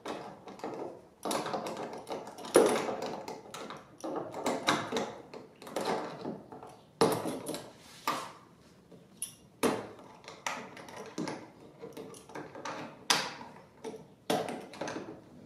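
Irregular clicks, knocks and short scrapes of hands and tools working small hardware, as a nut is fitted and tightened on a kayak's fish-finder transducer mount.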